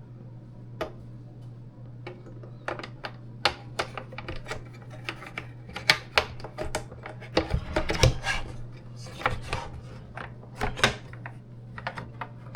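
Irregular clicks and knocks of a George Foreman grill's plastic grease drip tray being pushed, wiggled and tried in its slot, which it does not slide all the way into.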